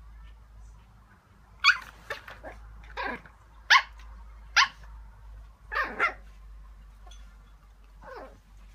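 Chihuahua puppy barking in short, sharp yaps while it play-fights its bed, about eight in all, starting about a second and a half in and irregularly spaced.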